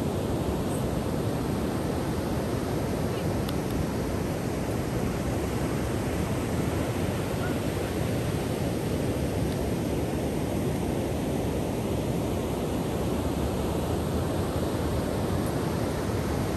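Ocean surf on a sandy beach: a steady rush of waves breaking and washing up the shore.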